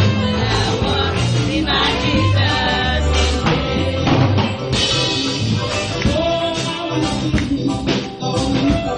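A gospel praise team of several voices singing together into microphones over amplified accompaniment with a heavy bass line; the bass drops back about halfway through.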